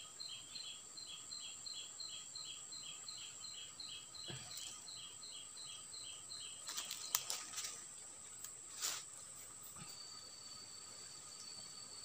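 Insects calling: a rhythmic high chirping about three times a second, which stops about six and a half seconds in, over a steady high-pitched drone. A few short clicks and rustles come around seven to nine seconds in, and a different steady high tone sets in near the end.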